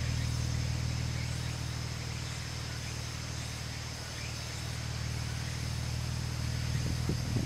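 BMW E61 530i's 3.0-litre N52B30A naturally aspirated inline-six idling steadily through an aftermarket muffler, heard at the twin tailpipes.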